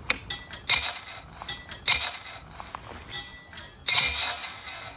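A rusty steel muffler being handled and set down on gravel. There are three short crunching, scraping noises about a second or two apart, with light metallic clinks, and the last one, near the end, is the longest and loudest.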